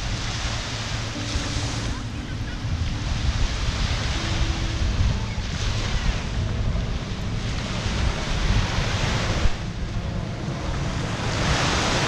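Small surf breaking and washing up the sand at the shoreline, coming in surges every few seconds, with wind rumbling on the microphone.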